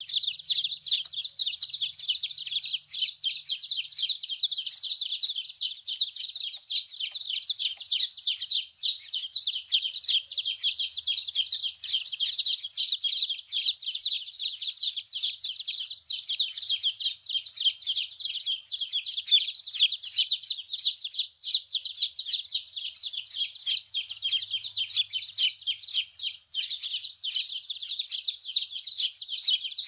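Baby chicks peeping without pause, many high chirps overlapping in a dense chorus.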